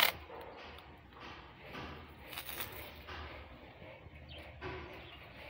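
Masking tape being pulled and pressed along a wall edge by hand: a few short rustling, peeling sounds, the clearest about halfway through.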